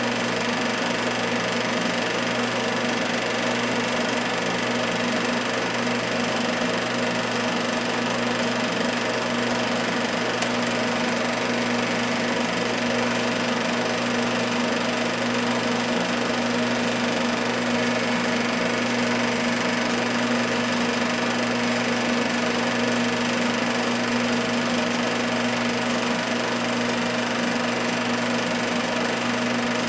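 Film projector running: a steady mechanical whir and clatter with a low hum that does not change.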